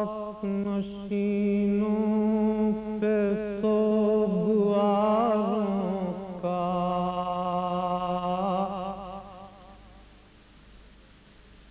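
A man's unaccompanied voice humming long held notes without words, the pitch wavering in vibrato on some notes: the wordless opening of a salam recitation. The voice fades away about ten seconds in.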